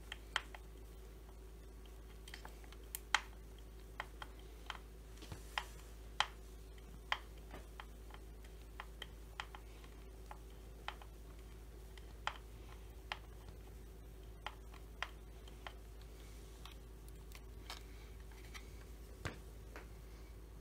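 Sparse, irregular light clicks and taps of hand tools and small parts as the ignition coil on a Stihl 025 chainsaw is fitted and its mounting screws worked, over a faint steady hum.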